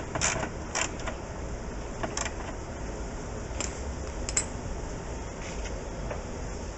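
Scattered light clicks and knocks from hand work on a VW Beetle door's window regulator and fasteners, over a low steady background noise.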